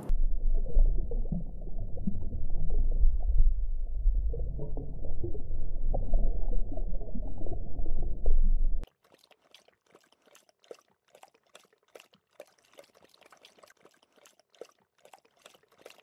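Muffled rushing and bubbling of aquarium water, loud and dull with no treble, for about nine seconds before it cuts off suddenly. Faint scattered small clicks follow.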